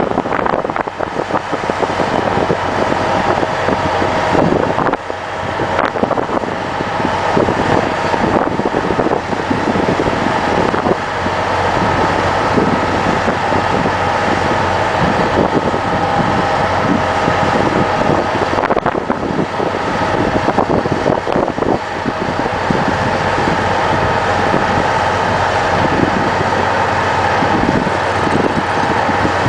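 Bruce SGV-200 single-clamp hydraulic vibratory hammer running, vibrating a steel sheet pile down into the ground: a loud, steady mechanical drone with a held pitch over a dense rumble.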